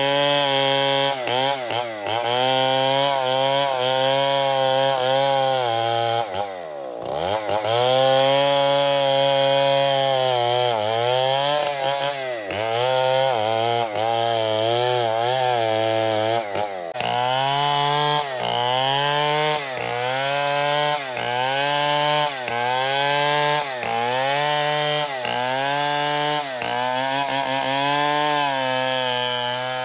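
Stihl 070 two-stroke chainsaw at high revs, rip-cutting a merbau hardwood beam lengthwise into planks, its pitch wavering under load. About seven seconds in, the engine drops briefly towards idle and revs back up. In the second half, the revs sag and recover about once a second.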